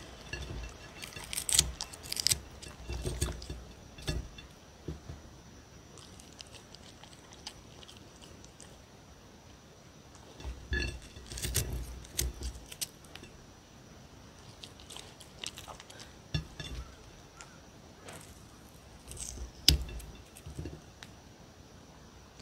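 A puppy crunching and chewing cucumber pieces from a hand, with light clinks of fingers picking slices off a plate. The clicks and crunches come in three short clusters: near the start, about halfway, and near the end.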